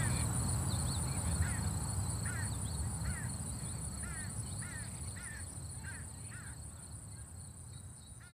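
Outdoor birds calling over and over, short dropping calls about once or twice a second, over a low steady rumble and a thin high steady whine. The whole sound fades slowly and cuts off at the very end.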